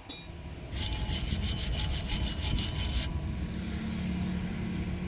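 Quick rhythmic back-and-forth scraping of a hand tool on metal for about two seconds, then it stops; a faint low steady hum follows.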